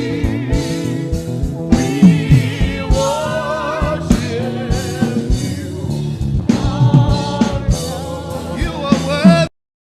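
Live gospel worship music with singing over a band, cutting off abruptly near the end.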